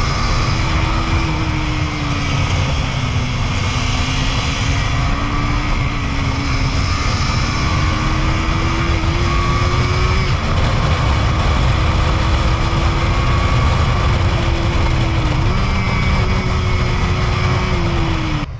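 Motorcycle ridden at high speed: heavy wind rush over the microphone, with a KTM Duke 250's single-cylinder engine holding a steady high note that wavers slightly. The engine note eases down near the end, then everything cuts off suddenly.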